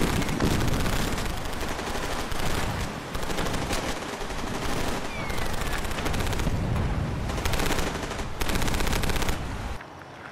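Sustained automatic gunfire, a dense rapid stream of shots that cuts off suddenly near the end.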